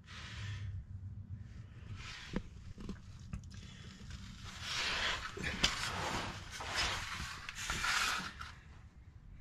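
Quiet heavy breathing and rustling from someone lying on the floor under a car, in swells about a second long, with a few light clicks of handling.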